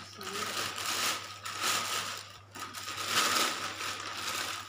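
Clear plastic bags crinkling and rustling as they are handled and lifted out of a styrofoam box, swelling and fading irregularly.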